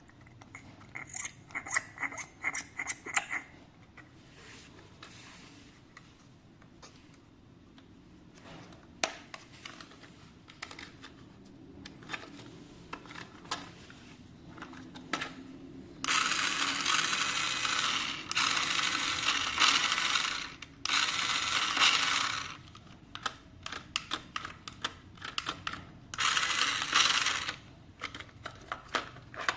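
Small plastic toy parts and packaging being handled: a quick run of clicks and rattles, scattered single clicks, then several loud rustling bursts of a second or two each.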